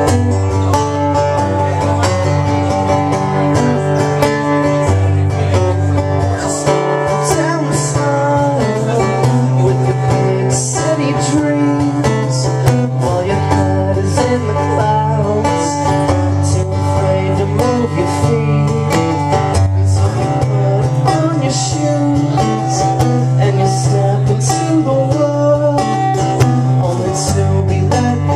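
A man strumming an acoustic guitar and singing a song live, in a steady strummed rhythm.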